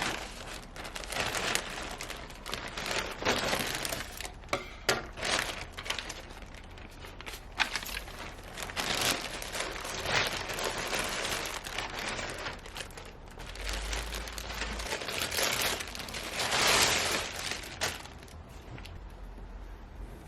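Crinkling and rustling of something being handled, in repeated swells, with a few sharp clicks and taps.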